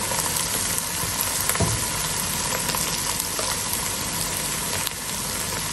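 Hot oil sizzling steadily in a pot of cooked chicken strips as chopped red onion is tipped in.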